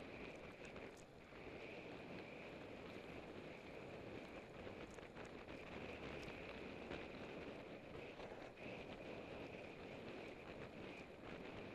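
Riding noise from a road bicycle at speed: a steady rush of wind over the action camera's microphone, with a steady high whir from the tyres and drivetrain and a few faint ticks.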